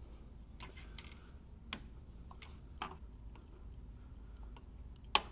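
Irregular light clicks and ticks of hand tools and a metal hose clamp as the clamp on a coolant hose is loosened, about half a dozen in all, the sharpest one near the end.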